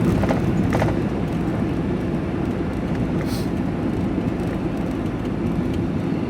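Steady van cabin noise while driving: engine and road rumble heard from inside the cab.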